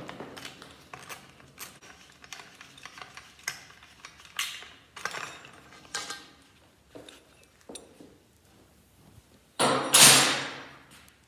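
Scattered metal clinks, taps and clatters of garage door opener rail parts being handled, with a louder scraping rattle near the end.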